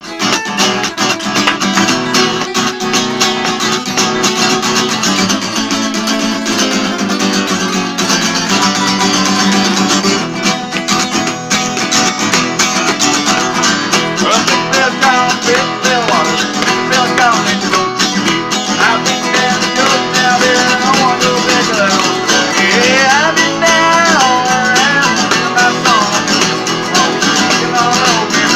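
Two acoustic guitars strummed together in a steady rhythm, with a man's singing voice joining about halfway through.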